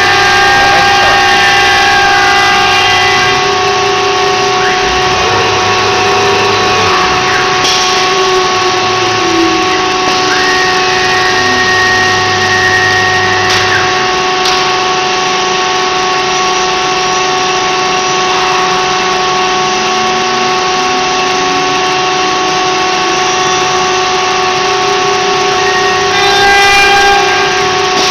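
CNC router running: the spindle gives a steady high whine with several held tones. The axis drive motors' pitch slides down about a third of the way in and back up a little later, as they slow down and speed up.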